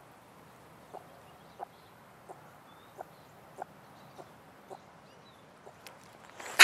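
A young ringtail (ringtail cat) giving short, faint barking chirps, about seven of them, one every two-thirds of a second.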